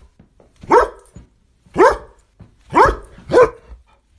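A dog barking four times, each bark sharp and short, roughly once a second, with the last two coming close together.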